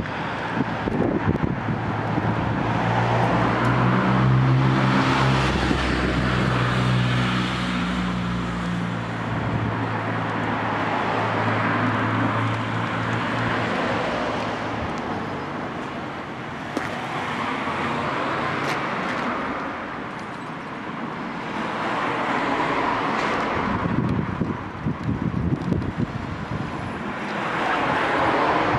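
Road traffic: a motor vehicle engine running steadily for the first dozen seconds or so, then cars passing by, their noise swelling and fading several times.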